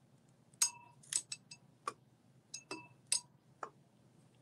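Metal electrodes of a water electrolysis tester clicking and clinking against two glass beakers as they are set in place: about nine sharp, irregular clicks, a few with a brief glassy ring.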